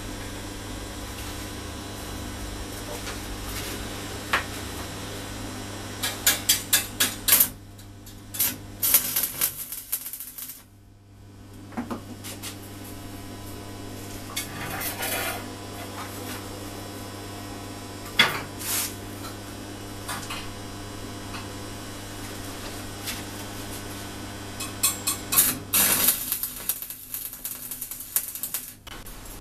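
Stick-welding arc tacking steel rods together: several clusters of short crackling bursts, the last cluster near the end. Light metal clinks from the rods being handled come in between, over a steady low hum.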